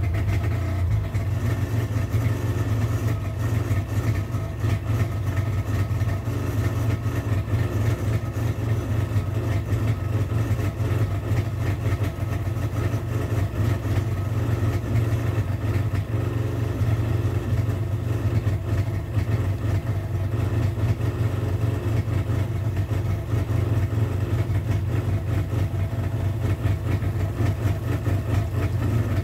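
Kawasaki STX-R 1200's two-stroke triple engine, just fired up and running steadily at idle on its stand out of the water, with no revving.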